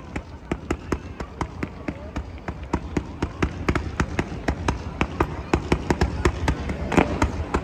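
Fireworks going off in a rapid, even string of pops, about four or five a second, with a few louder bangs near the end.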